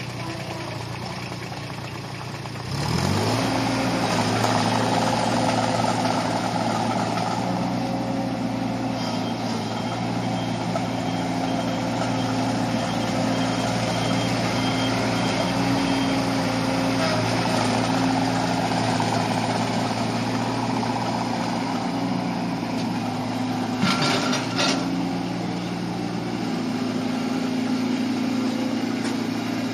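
Yanmar JAC-18 compact tracked tractor's 18 hp three-cylinder diesel engine idling, then revved up about three seconds in and held at a steady higher speed as the tractor drives off, with a brief clatter near the end.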